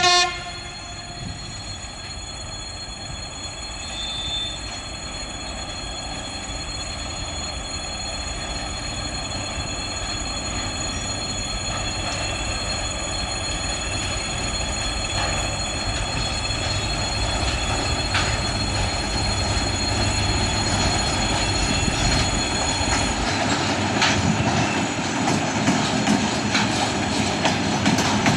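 2TE116U two-section diesel locomotive hauling a freight train: a short horn blast right at the start, then the locomotive's engines and the train's running noise growing steadily louder as it approaches, with wheels clicking over rail joints in the last few seconds.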